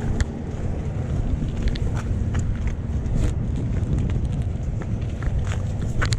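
Wind buffeting the microphone in a steady low rumble, with scattered light clicks and rattles.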